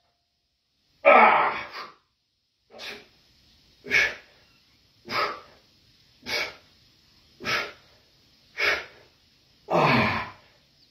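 A man breathing out forcefully in a steady rhythm, one breath with each rep of a wide-grip barbell bench press, about eight in all, a little over a second apart; the first, about a second in, is the loudest.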